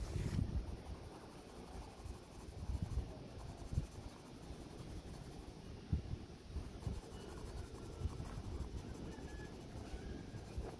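Green neon Faber-Castell Ecolápis colored pencil shading on paper: an uneven, continuous scratching as the lead is rubbed back and forth, with a few soft bumps.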